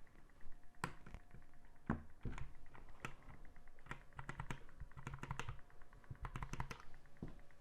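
Irregular clicks and clacks of a Drop Alt mechanical keyboard as resin artisan keycaps are pressed onto the switches and the keys are pressed, a few sharp taps a second.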